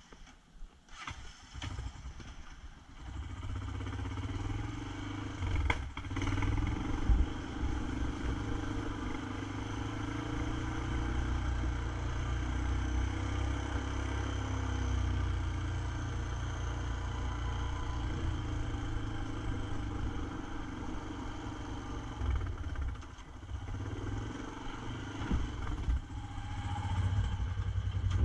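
ATV engine running as the quad is ridden, a low, steady engine note. It is fainter for the first couple of seconds, louder once it gets moving, and dips briefly a few seconds before the end before picking up again.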